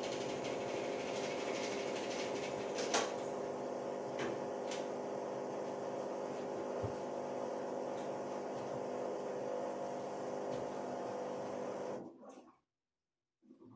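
Electrolux top-loading washing machine's motor running steadily during a wash, a mechanical hum with a couple of sharp clicks, then stopping abruptly about twelve seconds in, followed by a few faint soft knocks.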